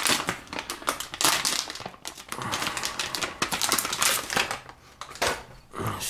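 Shiny anti-static bag crinkling and crackling in irregular bursts as it is handled and a hard drive is taken out of it.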